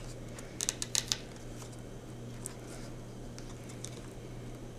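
A few light clicks from a tool and ribbon cable being gently peeled off a laptop's optical drive enclosure, clustered about a second in, over a steady low hum.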